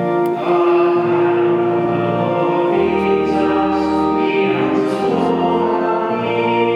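Sacred vocal music: a psalm setting sung with instrumental accompaniment, long sustained notes over a slowly changing bass line.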